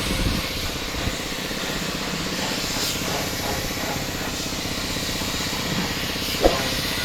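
A machine running steadily with an even, droning hum, and a single sharp knock about six and a half seconds in.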